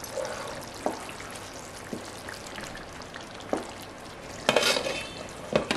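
Thick curry simmering and sizzling in a nonstick pan while a wooden spatula stirs it, with a few light knocks of the spatula against the pan and a louder scrape near the end.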